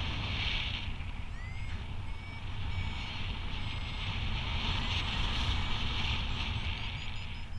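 Wind rushing over the microphone of a paraglider in flight, with short electronic beeps changing in pitch, typical of a variometer signalling climbing air in a thermal.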